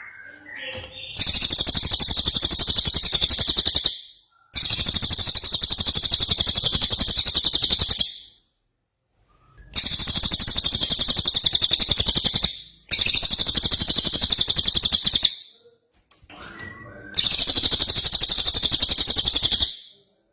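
A songbird singing five long, very fast, high-pitched trills of about three seconds each, with short pauses between them, and a few fainter, shorter calls at the start and before the last trill.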